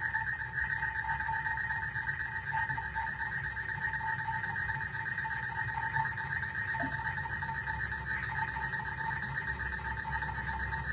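A steady hum with a constant high tone over a low rumble, unchanging throughout.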